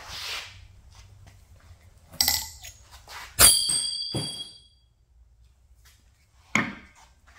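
Three hammer blows on a hardened Damascus steel blade during a break test to snap it and inspect the grain. The loudest blow comes a little past the middle and rings with a high metallic ring for about a second.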